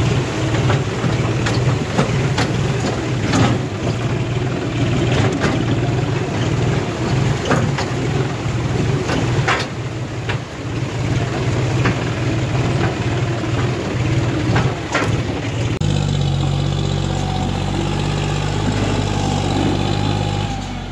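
A John Deere tractor's diesel engine running under load as it hauls a loaded trailer through a rocky riverbed, with frequent knocks and rattles. About 16 seconds in, the sound changes abruptly to a steadier drone from the same tractor engine as it works up a rough stony track.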